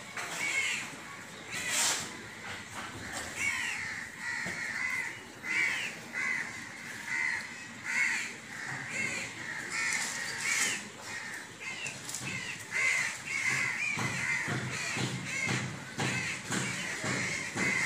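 Crows cawing over and over, short calls following one another every second or so.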